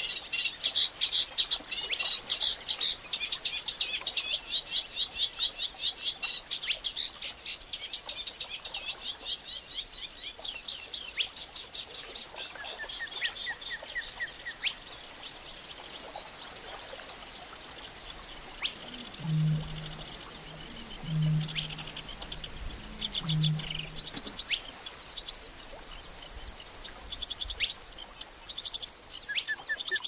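Wetland bird chorus from a recreated reedbed soundscape. It opens with fast, high chirping trills; around the middle come three low, short hoots about two seconds apart, and a high warbling phrase repeats in the later part.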